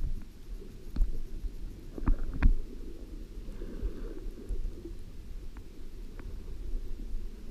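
Muffled underwater rumble of water moving around the camera, with a few sharp knocks about a second in and twice around two seconds in.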